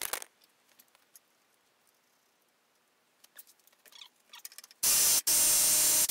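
A few light clicks, then an electric impact wrench (a Clarke) rattling the gearbox sprocket nut tight: a short burst about five seconds in, a brief stop, then a longer run near the end.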